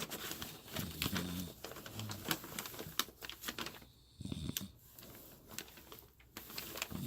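A woman snoring in her sleep: short, low snores that come irregularly, one to three seconds apart. Many small sharp clicks and crackles fall between them.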